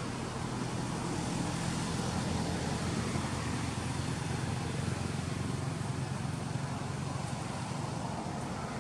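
Motor vehicle engine running nearby: a steady low hum over a broad hiss, growing a little louder around the middle and easing off near the end.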